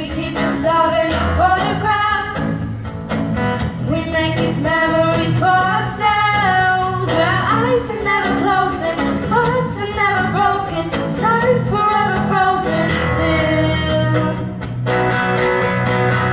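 Girls singing a song into a microphone, with instrumental accompaniment underneath.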